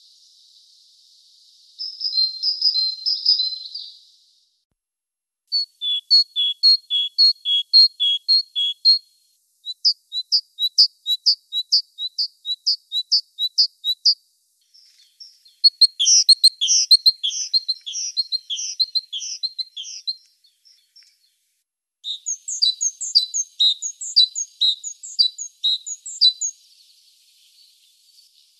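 Great tit singing: five bouts of rapidly repeated high, clear notes, each bout a few seconds long, with short pauses between them.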